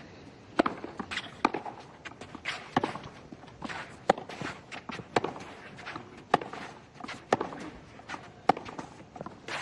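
Tennis rally on a clay court: sharp racket-on-ball hits and ball bounces about once a second, with the players' footsteps on the clay between the shots.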